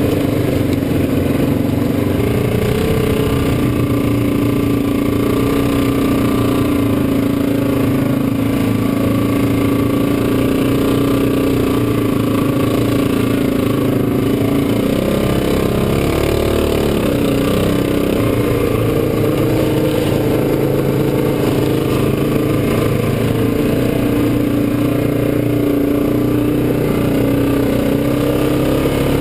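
ATV (quad) engine running steadily, heard close up from the machine itself, its note wavering and shifting in pitch about halfway through as the throttle changes.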